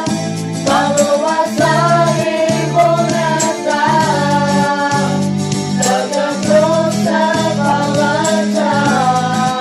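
Mixed choir of young men and women singing a Pwo Karen Christian song in harmony, over an instrumental backing with a repeated bass line and light percussion.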